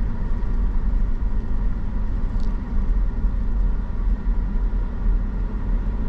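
Steady low rumble inside a car's cabin while driving: engine and road noise, with the air conditioning blowing.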